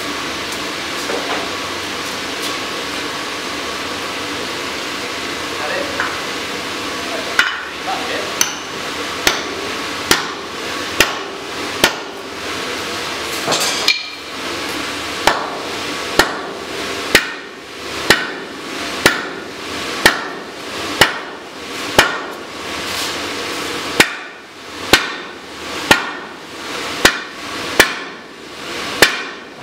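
Sledgehammer blows on hot steel, driving a drift to open the hardy hole of a striking anvil. Sharp ringing strikes come at about one a second, starting about seven seconds in, after a steady rushing noise.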